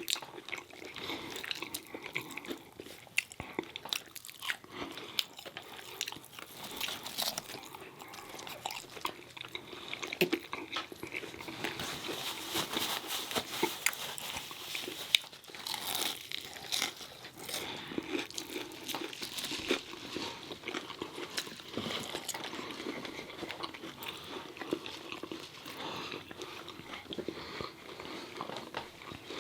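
A person chewing and crunching fried food (chicken tenders and fries) close to the microphone, with many small, irregular mouth clicks and crunches throughout.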